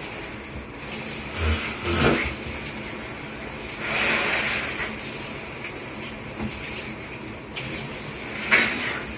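Shower head spraying water: a steady hiss of spray that swells about four seconds in, with a few brief thumps and sharp splashes.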